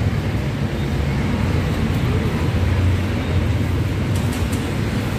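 Steady low rumble of city street traffic and general street ambience.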